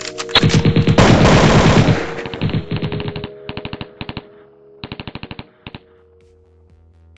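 Rapid-fire bursts of sharp hits over background music: a loud, dense run starting about half a second in and lasting nearly three seconds, then three short bursts of about six hits each that get quieter.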